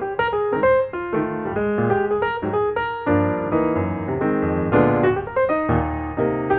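Piano music: a flowing run of quick notes over held low chords.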